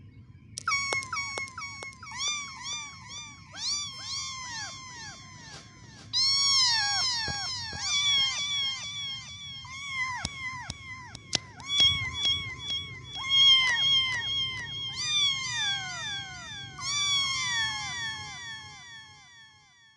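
Young kittens mewing over and over: short, high calls that fall in pitch, two or three a second, often overlapping. A few sharp clicks and a low steady hum lie underneath, and the mewing fades out near the end.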